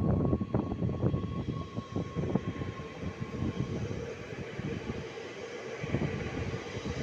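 A train passing through a station, its wheels clattering over the track in a quick run of knocks for the first couple of seconds, then settling into a steadier rolling rumble with a faint steady hum.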